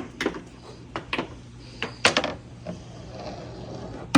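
A billiard ball rolling along a handmade wooden track, giving a run of sharp, irregular clacks and knocks as it hits the wood. The clacks bunch together about two seconds in, and a loud knock comes at the very end.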